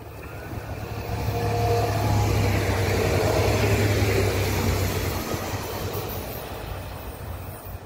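Trilex Siemens Desiro Classic diesel railcar passing at speed: a low engine hum and wheel-on-rail noise swell to a peak about two to four seconds in, then fade as the train goes away.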